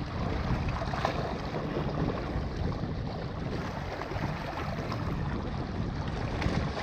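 Wind buffeting the microphone in a steady rumble, with small waves lapping against a rocky shoreline.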